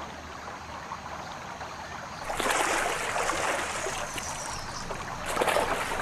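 Amur tiger splashing through pond water: soft sloshing at first, then loud splashing from about two seconds in, with another surge of splashing near the end.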